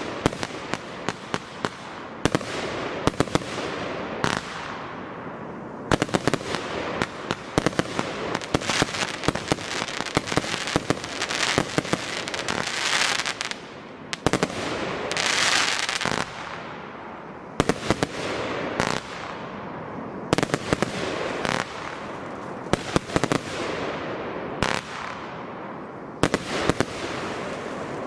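Consumer F2 compound firework battery firing: a rapid, uneven run of launch shots and bursts, with two loud stretches of dense hissing a little before and after the middle.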